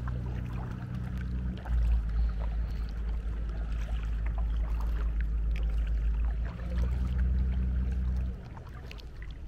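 Water sounds from a sea canoe gliding on calm water, with light splashes and drips. Under them is a steady low rumble that swells and falls, dropping away sharply near the end.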